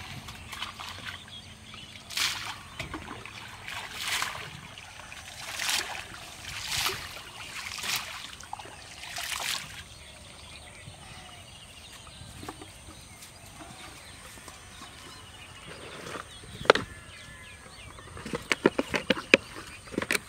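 Canal water sloshing and splashing in about six separate swells as it is worked by hand at the bank. Near the end, a sharp knock and then a quick run of clicks and crackles.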